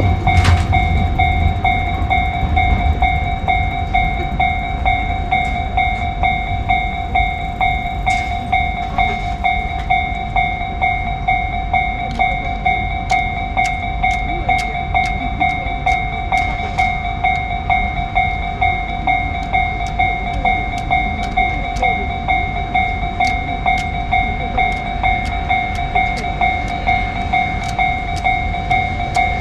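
Japanese level-crossing warning bell ringing on and on in a rapid, even electronic ding, while a train passes with a low rumble that is strongest in the first few seconds and then eases. Sharp clicks come through during the middle stretch.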